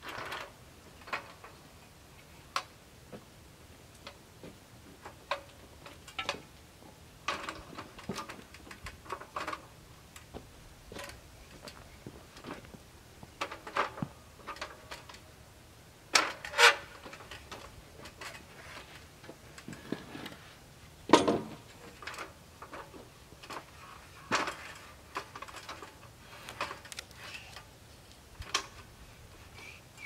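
Irregular knocks, taps and clatters of lumber and tools being handled while framing a wooden shed, with no steady rhythm; the loudest knocks come about 16 and 21 seconds in.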